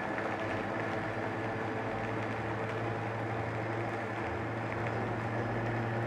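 Countertop blender motor running steadily, puréeing tomato, cashews, parsley and water into a thick raw soup. Its low hum settles into a stronger, even tone about four seconds in.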